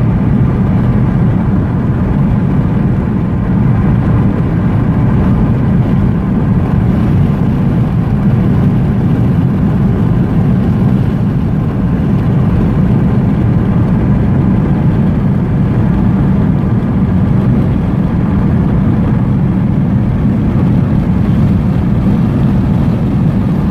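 Steady cabin noise of a car cruising at highway speed: a constant low rumble of tyres, engine and wind heard from inside the vehicle.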